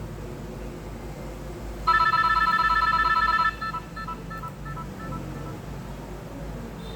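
Nokia 2760 mobile phone's speaker playing a short electronic ringtone: a fast warbling trill of beeps for about a second and a half, then quieter echoing repeats that die away. A brief high tone starts near the end.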